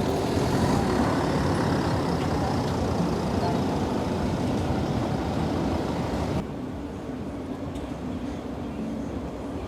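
Steady city street noise dominated by motor traffic. About six seconds in it cuts abruptly to a quieter, duller background hum.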